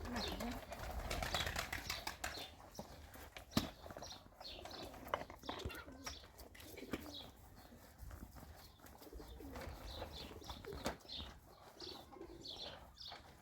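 Small birds chirping again and again, with a few sharp knocks in between.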